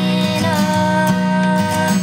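A woman singing over her own strummed acoustic guitar, holding one long note from about half a second in.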